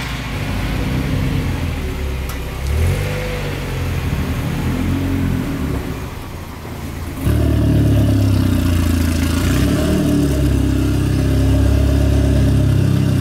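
Mazda Miata four-cylinder engines moving on a shop floor. A stock 1.6 Miata drives off. About seven seconds in, a louder engine takes over and runs steadily: the gutted 1.6 turbo Miata drift car pulling in.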